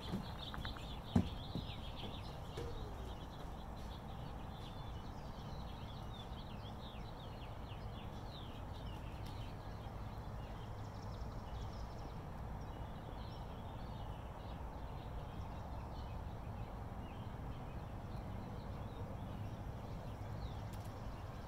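Outdoor ambience at a backyard edged by woods: small birds chirping over a steady low rumble, with one sharp click about a second in.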